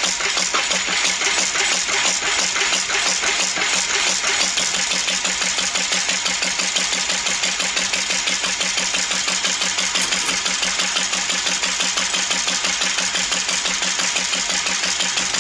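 Engine running steadily with an even, regular beat, just tuned by ear: its ignition timing and fuel mixture have been adjusted until it runs right.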